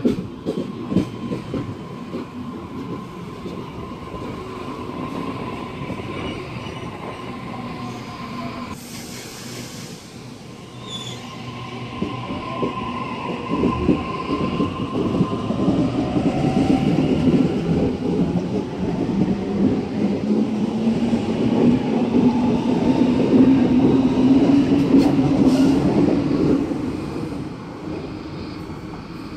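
Double-deck electric suburban train: wheel clicks as it comes in, a steady high whine while it stands and a short hiss about nine seconds in. It then pulls away with a rising electric motor whine that builds to its loudest and fades near the end.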